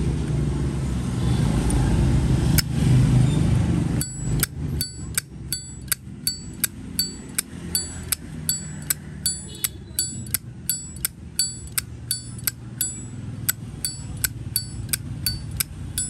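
Brass Zippo lighter with a gold-plated case and brass insert being flipped open and snapped shut over and over, about two to three times a second, each stroke a sharp click with a bright metallic ring. A low rumble fills the first four seconds, before the steady clicking begins.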